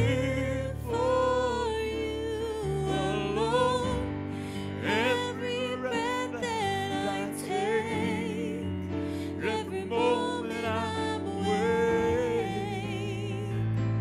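A woman singing a worship song with vibrato, accompanying herself on a Yamaha Motif XS8 synthesizer keyboard playing long-held chords.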